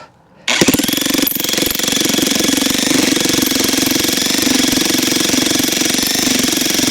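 Corded electric jackhammer starting about half a second in and hammering steadily, its bit being driven into a tough cottonwood log round to split it.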